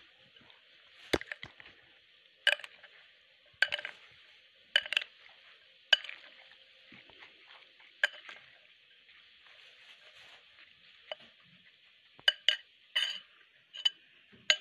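Spoon clinking against a bowl as chickpea chaat with chopped vegetables is stirred: about a dozen sharp clinks, roughly one a second at first and coming closer together near the end.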